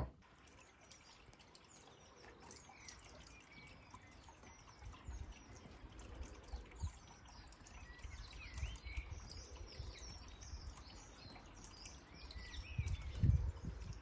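Faint garden birdsong: many short chirps and calls from small birds. Low rumbles come and go underneath, strongest near the end.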